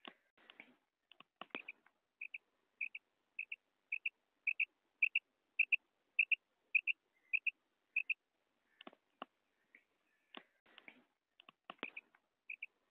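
Female quail's 'karik' call, the sound used to lure quail: a run of about eleven short high double notes, roughly two a second, that swells and fades. Clusters of sharp clicks come before the run and again in the last few seconds, and the double notes start again near the end.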